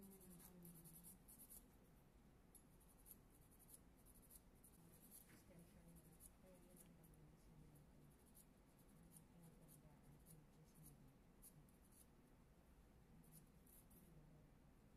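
Faint scratching strokes of a hand nail file rubbing over an acrylic nail extension, smoothing its surface.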